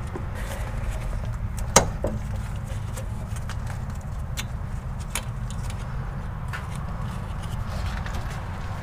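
A few sharp metal clicks and clinks from tools and the rear strut being handled and fitted, the loudest about two seconds in, over a steady low rumble.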